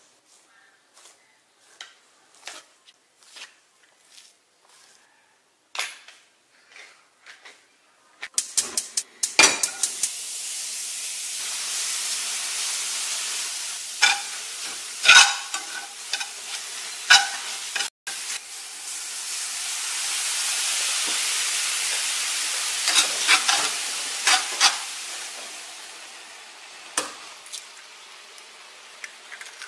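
Light taps and scrapes of food preparation, then about eight seconds in food starts sizzling in a hot frying pan, with sharp clicks and knocks of utensils against the pan over the hiss. The sizzle dies down near the end.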